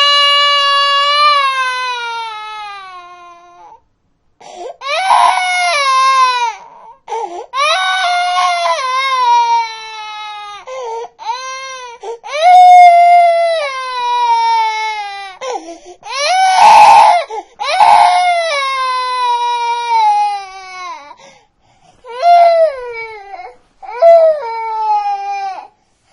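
Infant crying hard: a string of loud, drawn-out wails, each falling in pitch, broken by short catches of breath. About seventeen seconds in, one cry turns harsh and strained.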